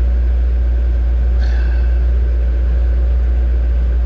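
C4 Corvette's V8 engine idling steadily with a deep, even rumble.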